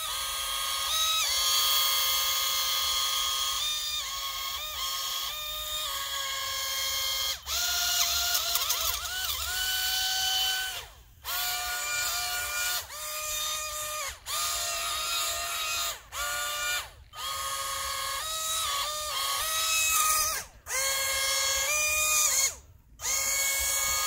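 The small electric drive motors of a toy RC amphibious car whining as it runs through water. The pitch steps up and down as the throttle changes, and the motors cut out briefly several times when the throttle is released.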